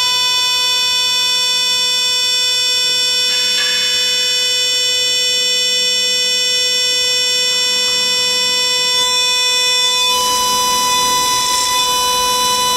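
CNC router spindle whining steadily at high pitch as the end mill cuts aluminium. About ten seconds in, a hissing cutting noise grows louder over the whine.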